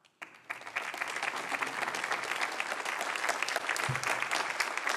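Audience applauding: clapping starts a fraction of a second in and quickly builds to a steady, even patter of many hands.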